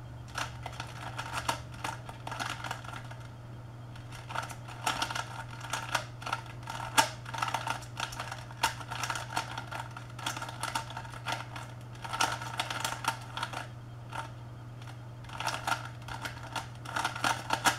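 Cheap plastic 3x3 speed cube being turned quickly during a timed solve: rapid clicking and clacking of its layers in bursts, with short pauses between them, over a steady low hum.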